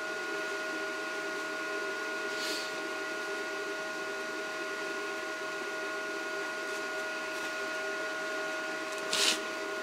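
Steady electrical machine hum with a few held tones. A faint short rustle comes about two and a half seconds in, and a louder short scuff near the end.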